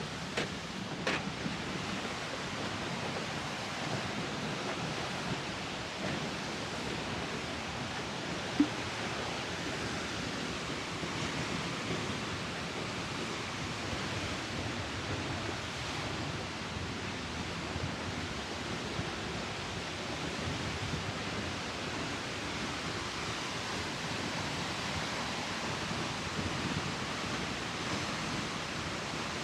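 Waterfall rushing with a steady, even noise. A single sharp tap stands out about eight seconds in.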